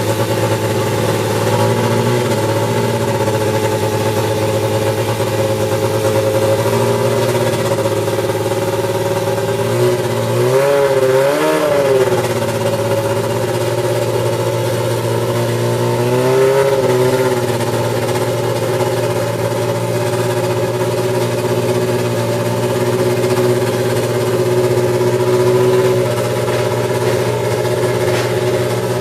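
Brabham BT52's BMW M12/13 1.5-litre turbocharged inline-four Formula One engine idling steadily after fire-up, with a couple of short throttle blips about ten seconds in and another at about seventeen seconds.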